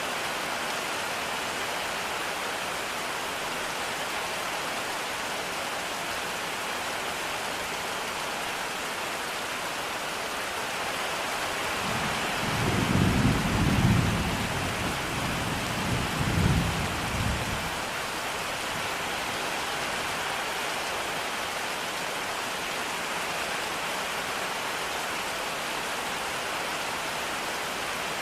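Steady rain, with a low roll of thunder about halfway through that swells twice over some five seconds and dies away.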